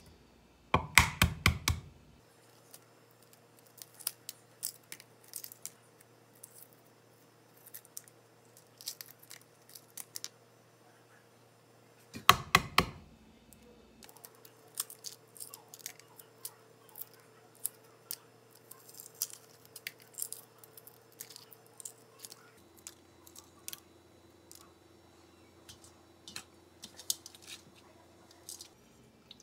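Hard-boiled eggs being peeled by hand: two bursts of rapid shell cracking, about a second in and about twelve seconds in, with soft crackling and small clicks of eggshell pieces breaking off between them.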